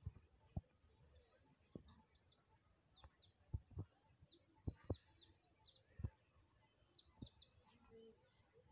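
Small birds chirping in repeated runs of quick, high, falling notes, faint against quiet surroundings, with several soft low thumps scattered through.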